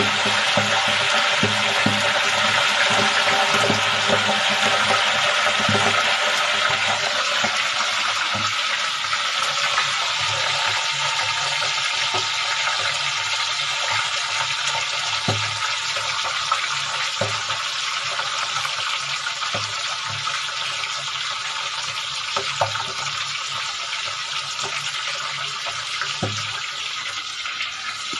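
Milkfish deep-frying in a steel pot of hot oil: a steady sizzling hiss with scattered pops and crackles, easing off gradually.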